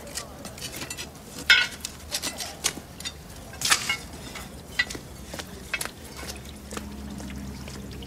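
Objects being handled by hand: scattered clinks, knocks and scrapes, the loudest about a second and a half in and again near four seconds in, over a low steady hum.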